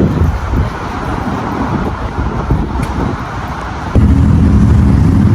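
Street traffic rumbling; about four seconds in a louder, steadier low drone starts abruptly.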